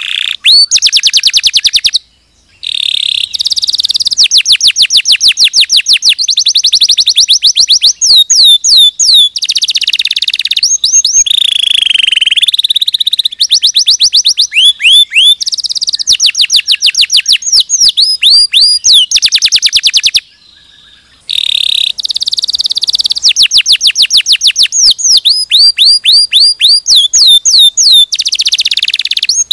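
Domestic canary singing a long, continuous song made of fast trills of rapidly repeated whistled notes and quick rising and falling sweeps. The song breaks off briefly twice, about two seconds in and again about twenty seconds in.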